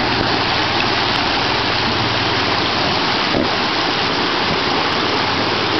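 Steady rush of a shallow, rocky river running over stones and small rapids.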